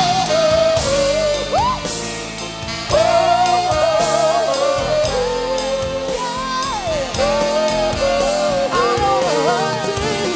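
Live band music: a lead vocal sings a bending melody line over a drum kit and keyboards, loud and continuous.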